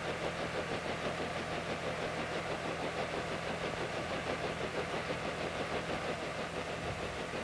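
A small piston-engined helicopter running steadily on the ground, its engine and turning rotor making a constant mechanical drone over a steady low hum.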